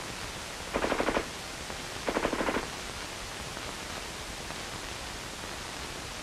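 US M2 carbine (.30 caliber) firing on full automatic: two short bursts, each a rapid string of shots lasting about half a second, starting about a second and a bit apart.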